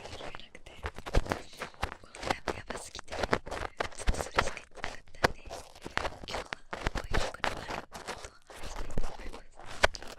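Ear-pick scraping and rubbing close against a dummy-ear microphone: a dense, irregular run of crackly scratches and clicks.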